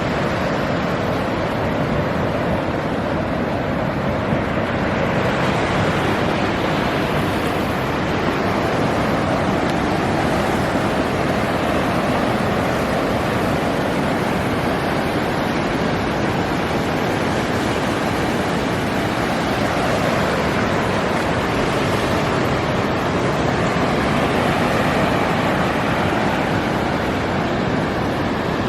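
Ocean surf washing onto a beach, a steady rush that swells and eases slowly, mixed with wind on the microphone.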